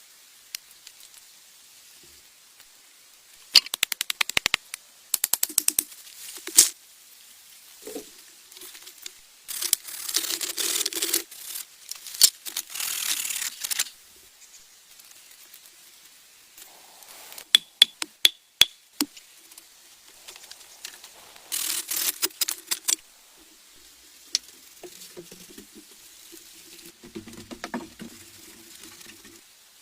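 Irregular bursts of rapid clicking, with a few sharp single knocks, and about four seconds of rasping scraping near the middle.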